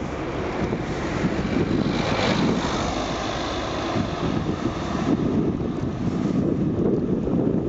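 Car overtaking a moving bicycle: its engine and tyre noise swell about two to three seconds in, then fade as it pulls away ahead, over steady wind rumble on the microphone.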